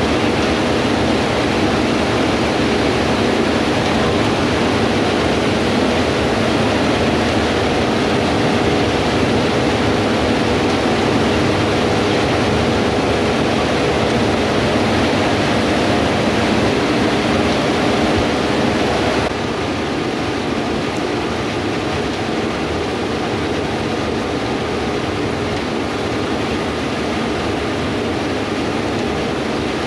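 Heavy farm machinery running steadily: a constant engine hum under a loud wash of noise, with wind on the microphone. About two-thirds of the way through the sound steps down slightly in level and changes character.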